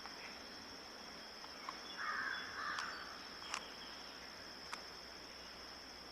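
Faint, steady high-pitched insect trill, typical of crickets. It is joined by a few sharp clicks and, about two seconds in, a brief harsh noise lasting about a second.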